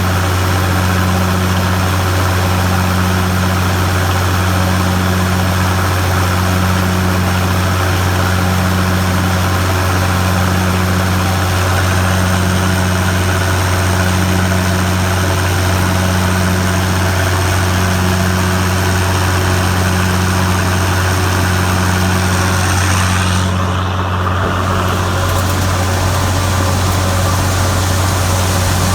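Gleaner combine's engine and harvesting machinery running steadily: a low drone with a fainter hum pulsing about once a second, which stops near the end.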